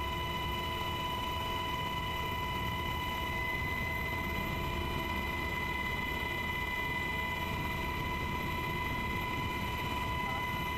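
Aircraft engine noise heard from inside the cabin: a constant low rumble with a steady high-pitched whine over it.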